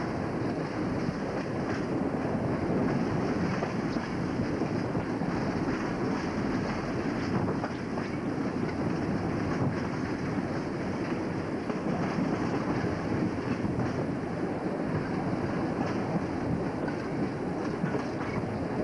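Steady running noise of a moving train heard from on board, its wheels running on the rails.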